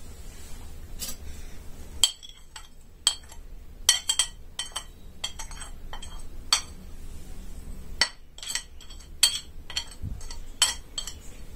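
Metal spoon clinking against a cut-glass bowl and a ceramic bowl while spices are spooned out: a dozen or so sharp, ringing clinks at irregular intervals.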